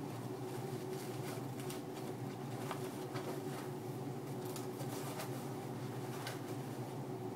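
Faint rustling and soft clicks of a fabric brush belt being tucked into its side pouch by hand, a few scattered handling noises over a steady low background hum.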